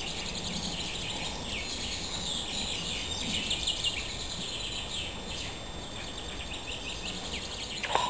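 Springtime forest birdsong: many small songbirds singing and calling at once, a dense chorus of high chirps and trills over faint steady background noise.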